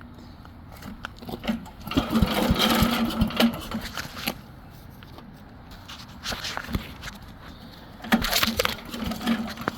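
Small engine running with a steady low hum, broken twice by bursts of loud clattering and clicks.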